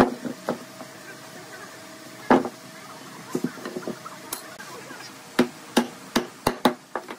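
Sawn blocks of wood being knocked and set down on a wooden tabletop: a series of sharp wooden knocks and clunks, a few spread out at first, then coming quicker, about three a second, in the last couple of seconds.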